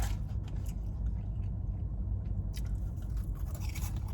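A person chewing and biting into French fries, with faint soft clicks of the mouth over a steady low rumble.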